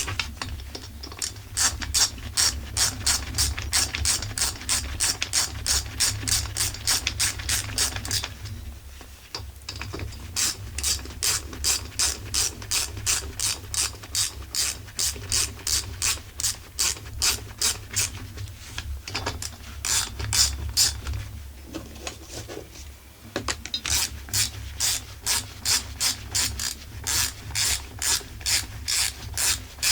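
Ratchet wrench clicking in quick, even strokes, about three a second, as the cylinder head screws on a Husqvarna 45 chainsaw are tightened, with short breaks about nine seconds in and again past twenty seconds.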